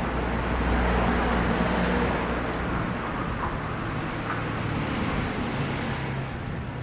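Steady background rumble and hiss with a low hum, a little louder for the first couple of seconds, then easing off.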